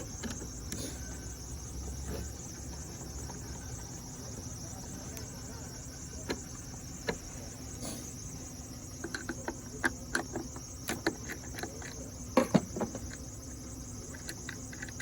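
Crickets chirping steadily in the background, with a cluster of short light clicks and knocks partway through.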